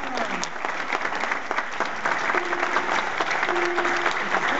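Audience applauding: a dense, steady patter of many hands clapping. A faint held tone sounds twice in the second half.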